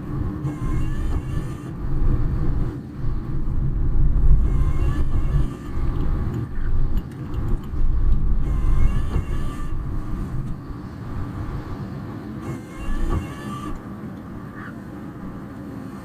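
Car driving, heard from inside the cabin: a low rumble of road and engine noise on a typhoon-soaked road, easing off after about twelve seconds.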